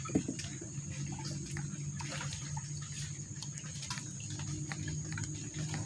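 Light drips and small splashes of water with scattered small clicks and taps, as a freshly caught giant freshwater prawn is handled, over a steady low hum and a steady high tone.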